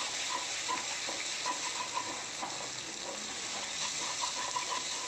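Grated potato, onion and peanuts sizzling as they fry in a stainless steel kadai, stirred with a wooden spatula that scrapes the pan in many short strokes.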